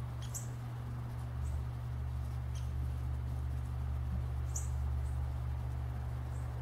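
Outdoor ambience: a steady low rumble, with brief high chirps about half a second in and again about four and a half seconds in.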